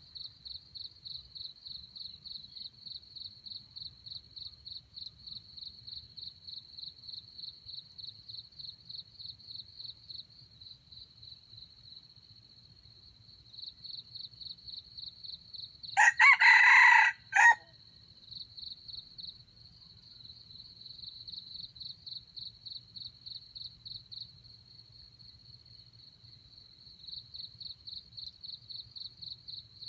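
A red junglefowl rooster crows once, a short, loud crow of about a second and a half midway through. Behind it, insects chirp steadily in a high pulsing rhythm of about four beats a second, pausing briefly a little before the crow.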